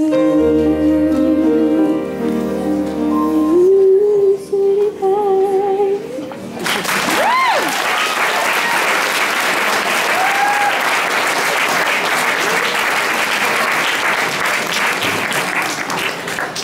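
A female solo voice holds the last notes of a jazz song, with vibrato, over the accompaniment's final held chord; the music stops about six and a half seconds in. Audience applause and cheering break out at once and carry on steadily.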